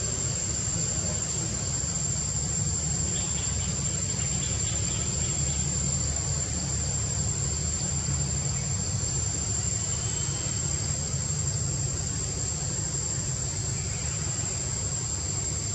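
Steady, high-pitched drone of forest insects such as crickets or cicadas, over a continuous low rumble.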